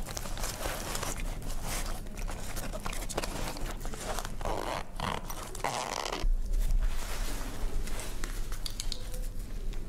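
Rustling and irregular plastic clicks as a life jacket's nylon straps and plastic buckles and a small electronics module are handled, with a dull thump a little past six seconds in.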